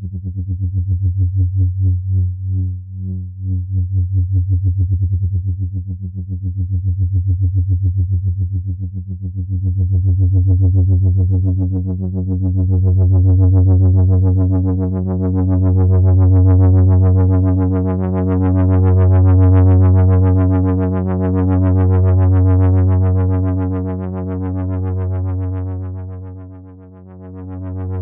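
Moog Minitaur analog bass synthesizer sounding one low held note with a rapid flutter, its loudness swelling and fading every few seconds. About ten seconds in, the tone grows brighter as the filter cutoff is opened.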